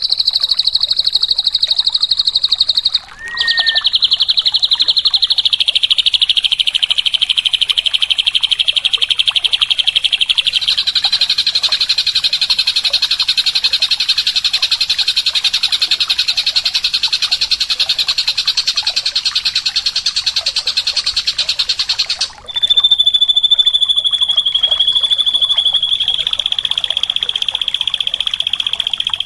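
Drongo (srigunting) singing a long, very fast buzzy trill, high-pitched and steady in loudness. It breaks off briefly twice, a few seconds in, where a short whistled note sounds, and again about three-quarters of the way through.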